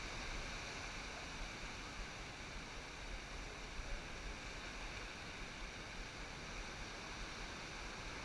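Ocean surf breaking and washing up the beach: a steady rushing noise with no single crash standing out.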